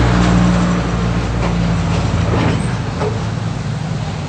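Motor vehicle engine idling steadily close by, a low even hum that eases slightly toward the end, with a few faint clicks over it.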